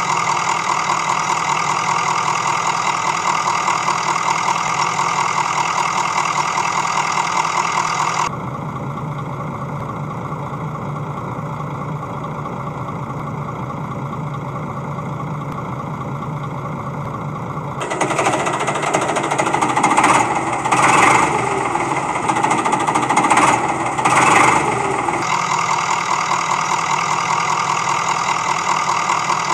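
Recorded truck engine sound effect: an engine running with a rapid knocking rattle, switching abruptly about 8 seconds in to a lower steady rumble, then revving up and down several times from about 18 seconds before the rattling idle returns near the end.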